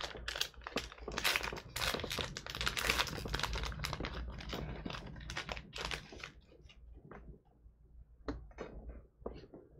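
Plastic wrapper of a baseball card pack crinkling and tearing as it is pulled open by hand. The crackling is dense for the first six seconds or so, then thins to scattered crinkles and clicks.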